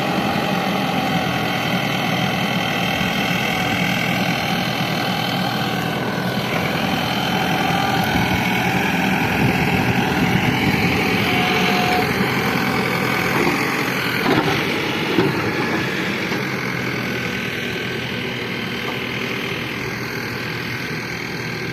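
Diesel engine of a backhoe loader or tractor running steadily, with a couple of short knocks about two-thirds of the way through.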